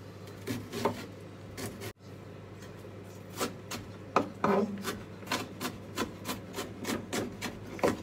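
Kitchen knife chopping an onion on a wooden cutting board: a few separate cuts at first, then a steady run of about two or three chops a second.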